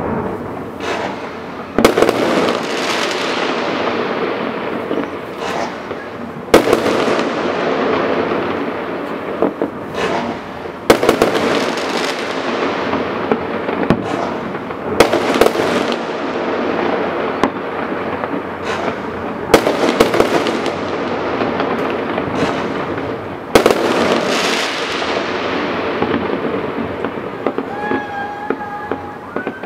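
Large aerial fireworks display: a big shell burst about every four seconds, each trailing off in a long crackling, rumbling tail, with many smaller pops and crackles in between.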